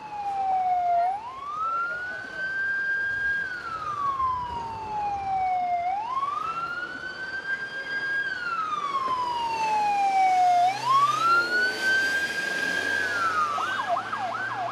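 Ambulance siren in a slow wail, rising, holding and falling about every five seconds, three times over. Near the end it switches to a rapid yelp of quick up-and-down sweeps.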